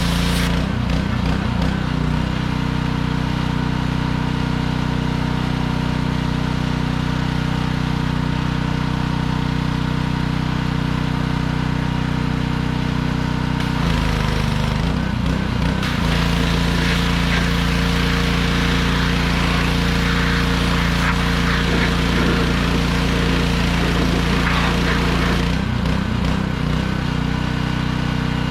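Gas-engine pressure washer running steadily with the hiss of its spray. The engine note wavers briefly three times, and the spray hiss grows denser in the second half.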